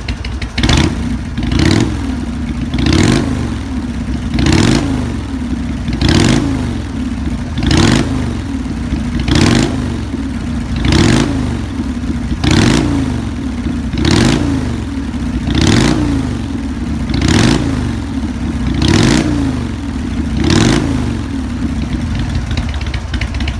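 Harley-Davidson Sportster's air-cooled V-twin idling through drag pipes fitted with an inner silencer, blipped about fourteen times, once every second and a half. Each rev rises and falls in pitch. In the last few seconds the engine only idles.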